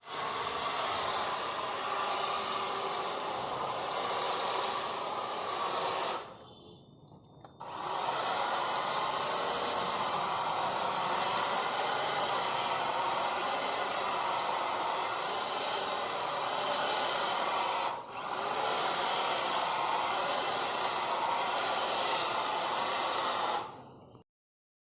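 Electric tree and plant cutting machine running, its motor a steady noise whose pitch wavers slightly. It stops for about a second and a half some six seconds in, runs again with a brief dip near the eighteen-second mark, and cuts off shortly before the end.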